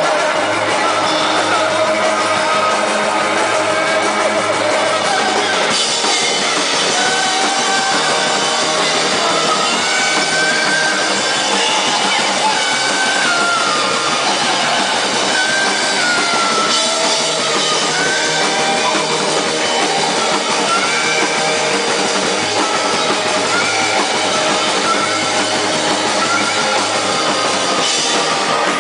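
Loud live electronic band music: a dense, unbroken mix of synthesizers and drums. Through the middle a high melody line slides up and down in pitch.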